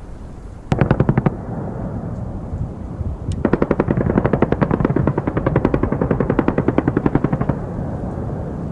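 Machine-gun fire over a steady low rumble: a short burst about a second in, then a long, rapid burst lasting about four seconds.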